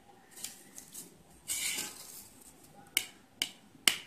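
Pencil scratching a line along a steel ruler on a paper-covered acrylic sheet, then three sharp clicks about half a second apart near the end as the metal ruler is shifted and set down on the sheet.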